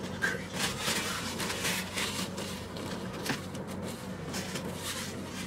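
Paper napkins rustling and crinkling in irregular short bursts as a food spill is wiped up, over a steady low hum.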